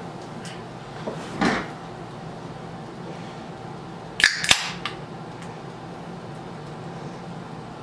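A drink can's pull tab being cracked open about four seconds in, heard as two sharp snaps close together. A brief dull sound comes earlier, about a second and a half in, over a steady low hum.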